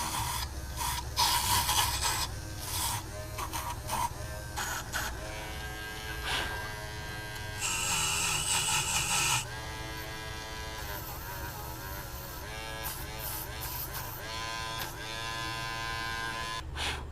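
Cordless Dremel rotary tool spinning a small brass wire wheel. Its whine dips and recovers in pitch as the wheel is pressed onto a circuit board to scrub off corrosion, with bursts of scratchy brushing, the loudest about a second in and about halfway through.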